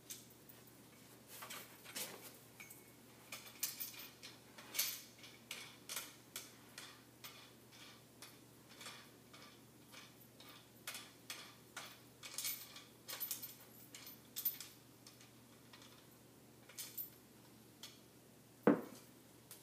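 Irregular clicks, taps and rattles of a backdrop stand's telescoping poles and clamps being handled and collapsed by hand, with one louder knock near the end.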